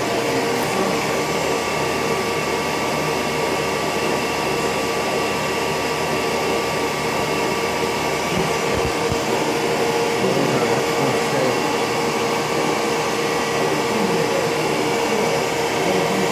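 1995 Femco WBMC 100R2 horizontal boring mill running: a steady motor whir with a few constant tones over a hiss.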